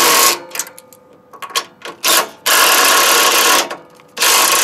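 Small impact wrench running in four bursts, the longest about a second, snugging bolts up into a steel step bracket before they are torqued.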